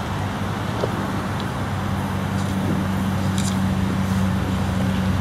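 A steady low hum that grows stronger from about two seconds in, over a faint even background.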